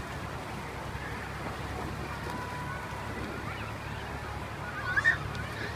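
Steady rush of pool water with faint children's voices in the background, and a child's short high shout about five seconds in.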